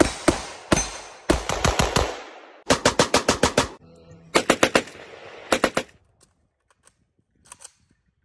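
Rifles firing rapid strings of shots, several strings of four to eight shots at up to about eight a second, each trailing off in echo. Near the end only a few faint clicks.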